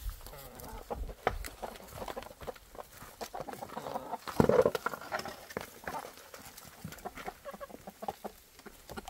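Hens clucking as they peck at cabbage leaves, with a scatter of small ticks and rustles; one louder cluck comes about halfway through.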